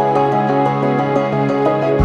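Background music: a calm, new-age style melody of steady, shifting notes.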